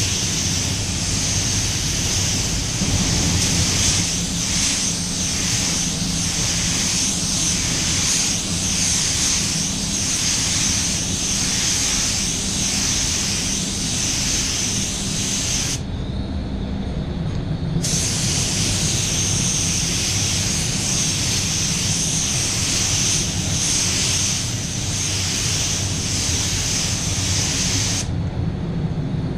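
Gravity-feed spray gun hissing as compressed air atomises clearcoat. The hiss stops for a couple of seconds about halfway through and again near the end as the trigger is released, while a steady low drone carries on beneath.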